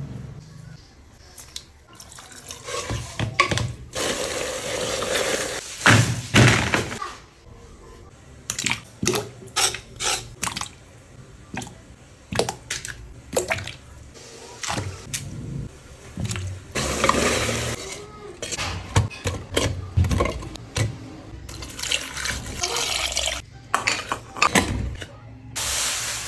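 Kitchen sink work: a tap runs in several stretches of a second or more, with knocks and clinks of dishes and utensils between them.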